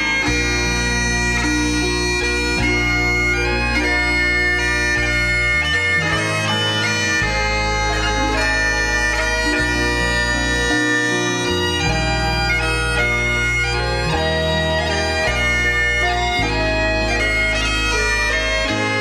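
Recorded bagpipe music: a piper playing a tune in held, changing notes over a low accompaniment that shifts note every second or two.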